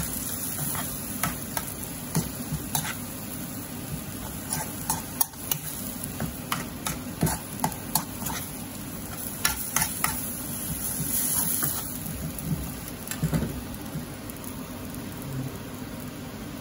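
Metal spoon stirring and scraping a thick spinach and onion curry in a black metal wok-style pan over a gas flame, with steady sizzling and irregular clicks of spoon on pan, busiest in the middle of the stretch.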